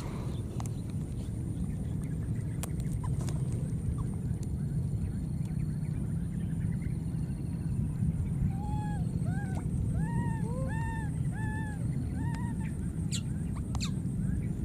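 Baby monkeys giving a run of short, arching squeals, about two a second, from around eight seconds in until near the end, over a steady low rumble.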